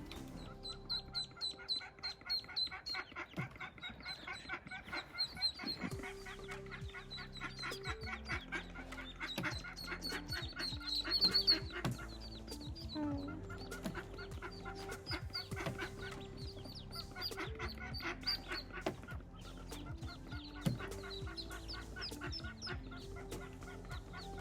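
A brood of mallard ducklings peeping, many rapid short calls overlapping in a dense chorus that swells and eases over the stretch.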